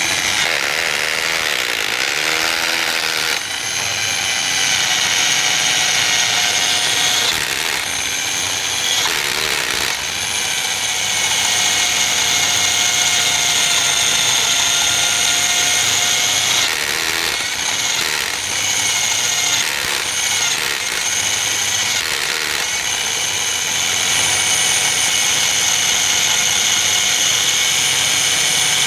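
Electric drill running a hole saw (serra copo) through a cut, its motor whining steadily with a few brief dips, in the last stretch of the hole.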